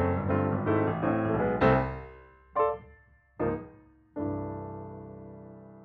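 Piano music closing out: a run of chords, then two short single notes and a final chord that is held and slowly dies away.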